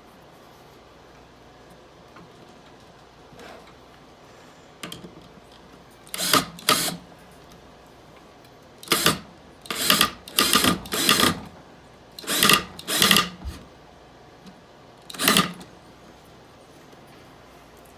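Power drill run in about nine short bursts, each about half a second long, drilling pilot holes or driving screws into the 2x2 wooden frame.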